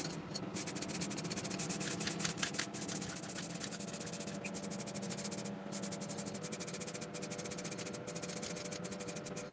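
Rapid, even rubbing strokes of hand abrasive work on rusty metal, several strokes a second, with a short pause about five and a half seconds in. A steady low hum runs underneath.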